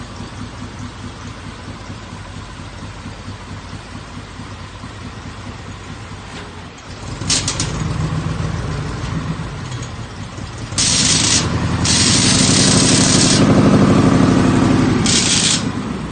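Vehicle engine running steadily, then working harder and louder about seven seconds in and again about eleven seconds in, with bursts of hissing noise over it near the end.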